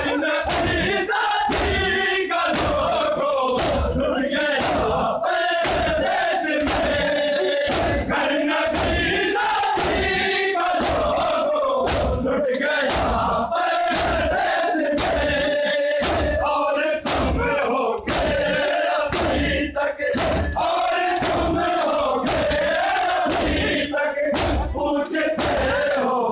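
A large crowd of men chanting in unison, cut by a steady beat of sharp strikes, roughly three every two seconds: hands slapping bare chests in matam, Shia mourning chest-beating, keeping time with the chant.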